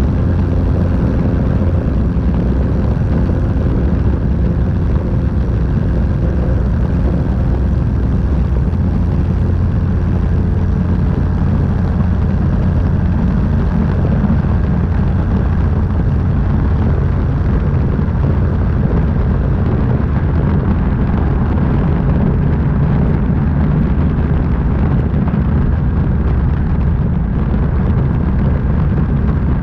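Light single-engine propeller aeroplane in flight: the engine and propeller drone steadily, mixed with a heavy rush of wind over a camera mounted under the wing.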